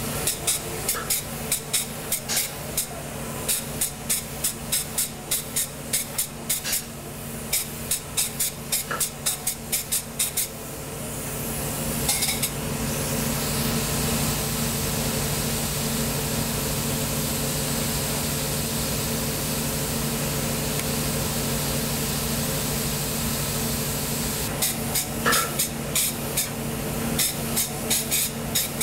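Graco air-purge fusion spray gun spraying polyurea in rapid short bursts of hissing spray, about three a second, then a long steady hiss for about a dozen seconds, then quick bursts again near the end. A steady low hum from the spray equipment runs underneath.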